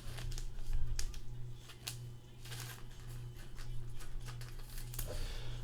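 Scattered light clicks and rustles of small handling noises, irregular and a few per second at most, over a steady low electrical hum.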